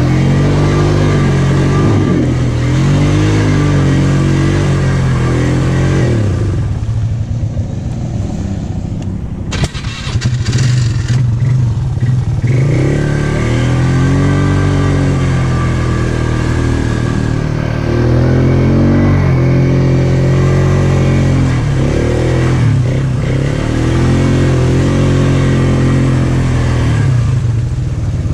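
ATV engine under load through mud, revving up and down over and over as the throttle is worked. It eases off about six seconds in, a short clatter of knocks follows around ten seconds, and then it revs on again.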